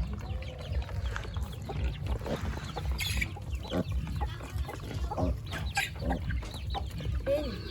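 A flock of chickens clucking, with many short calls at irregular intervals, over a steady low rumble.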